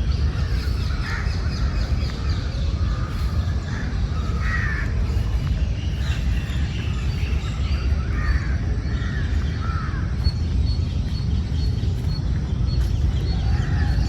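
Crows cawing on and off, with other birds calling faintly, over a steady low rumble.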